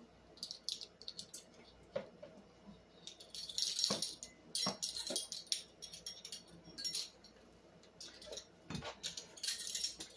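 Scattered clicks, clinks and rattling of kitchen utensils and containers being handled, busiest around four seconds in and again near the end.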